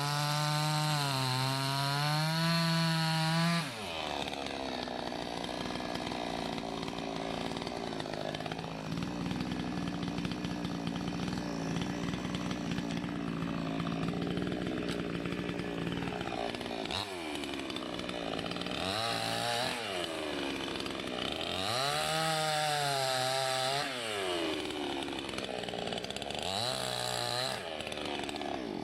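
Salem Master two-stroke gas chainsaw cutting through maple. It runs at full revs, drops in pitch as the chain bites into the wood about four seconds in, and then holds a steady, lower note under load. In the later part the revs dip and climb back several times before the sound cuts off at the end.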